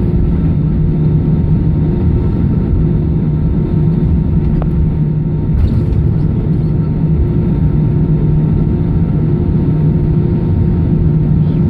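Airbus A319's jet engines at taxi power, heard inside the cabin over the wing: a steady low drone with a few constant hum tones.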